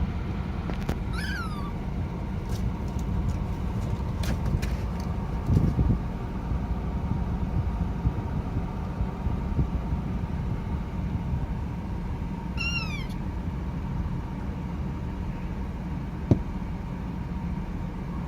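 A kitten meowing twice, about a second in and again about two-thirds of the way through: high calls falling in pitch, a baby cat calling for its mother. Underneath is a steady low rumble, with a few clicks and a thump.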